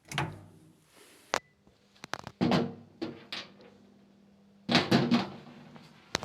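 Knocks and clatter of hard parts being handled, in irregular strokes with a loud cluster about five seconds in, over a faint steady hum.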